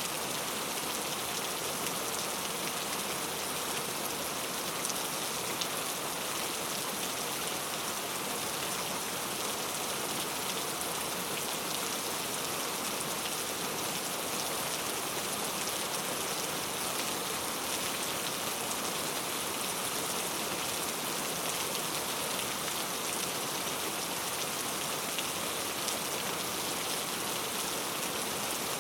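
Steady rain, falling evenly without let-up, with a dense patter of drops on surfaces.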